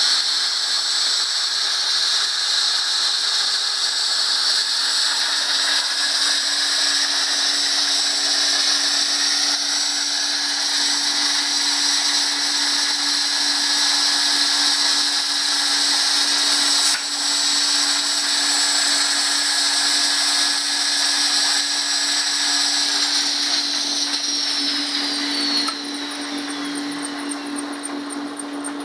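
Router spindle of a gantry CNC mill running at high speed with its bit in a metal workpiece: a steady, loud, high-pitched whine. Near the end its pitch slides down and the sound drops as the router spins down, leaving a lower steady hum.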